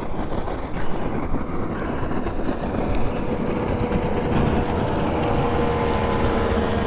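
A crab boat's motor running at speed as it approaches, its steady engine drone growing stronger about halfway through over a wash of wind and water noise.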